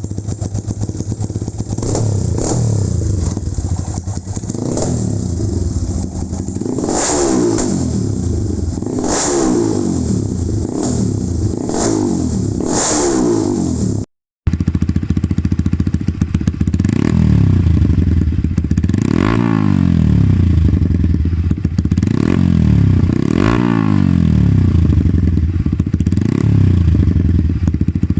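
Motorcycle with an MSH aftermarket exhaust idling and being blipped, the revs rising and falling again every second or two. About halfway through there is a short gap, and then another recording of an exhaust idling and being blipped the same way.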